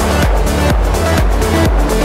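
Background electronic music with a steady beat of about two drum hits a second over held bass notes.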